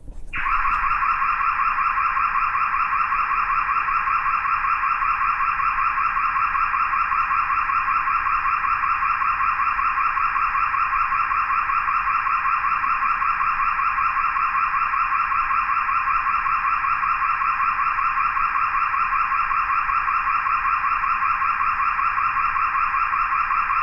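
Car alarm sounding a fast, steady warbling tone that starts about half a second in and keeps on without a break.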